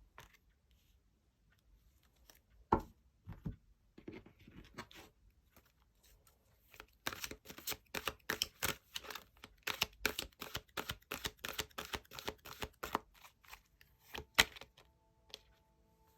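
Tarot cards being handled and shuffled: scattered snaps and rustles, a loud snap about three seconds in, then a quick run of sharp card snaps through the middle. Soft music tones start just before the end.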